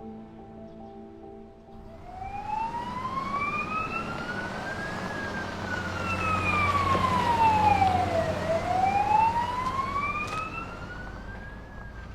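Fire engine siren wailing in slow sweeps, each rise and fall taking about three seconds, over the low rumble of the truck driving. It grows louder toward the middle and fades near the end.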